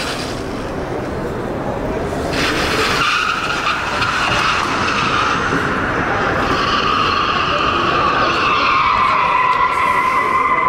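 Car tyres squealing in a long, sustained skid: a steady screech that eases briefly at the start, comes back about two seconds in, and slides a little lower in pitch near the end.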